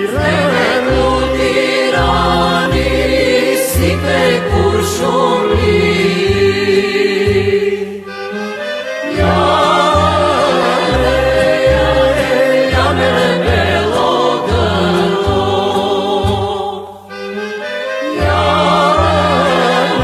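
Macedonian folk song sung by a male voice with backing singers over instrumental accompaniment and a steady, repeating bass line. The music briefly thins twice, between sung lines.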